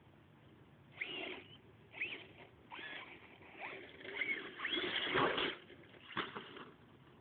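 Radio-controlled truck's motor whining as it revs up and down several times, loudest about five seconds in as it races at the jump, then a single sharp knock just after six seconds as the truck comes down.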